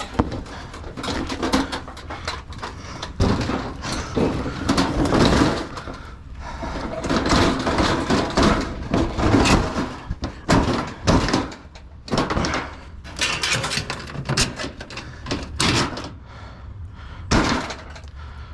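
Irregular knocks, scrapes and rattles of scrap being pulled about and handled, with several sharp bangs among them.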